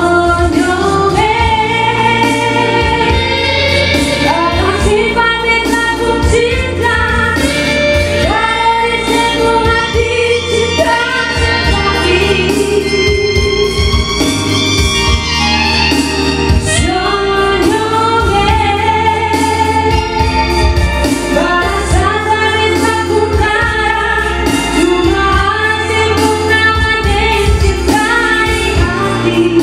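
A woman singing a slow melody into a microphone, with a live band behind her: bass and drums.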